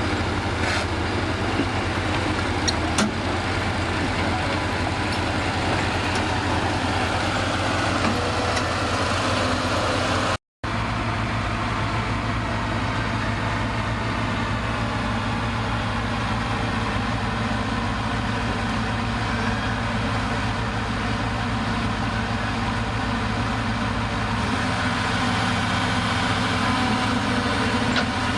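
Heavy diesel engine of earth-moving machinery idling steadily, with a few faint clicks. The sound cuts out for a moment about ten seconds in.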